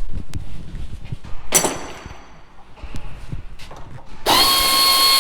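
Handheld power drill-driver: a short run about a second and a half in, then a steady whine starting about four seconds in, with clicks and knocks of metal parts being handled before it.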